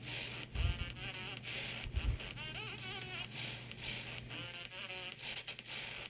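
Faint, indistinct background voices over a steady low hum, with two dull thumps, about half a second and two seconds in.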